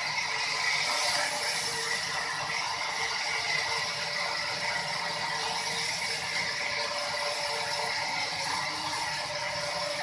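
Sawmill machinery running steadily, a continuous mechanical noise with a constant whine.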